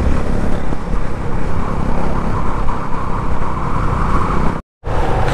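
Yamaha FZ25 motorcycle being ridden, its single-cylinder engine running steadily under a dense rushing noise. The sound cuts out completely for a split second about four and a half seconds in.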